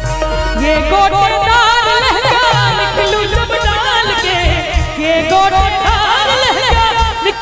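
A woman singing a Maithili folk song through a stage microphone and PA, her melody ornamented and wavering, over band accompaniment with a steady low drum beat.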